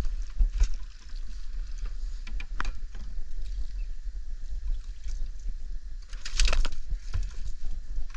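Knocks and handling noises in a small fishing boat over a steady low rumble of wind on the microphone, with a short rushing noise about six seconds in.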